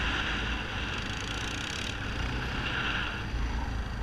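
ATV engine running steadily under way on a dirt trail, a continuous low drone with a broad hiss of wind and road noise over it.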